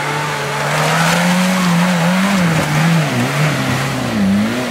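4WD engine working hard off-road, holding a steady high pitch that slowly rises. In the second half it swings up and down several times as the throttle is worked, over a steady rushing noise.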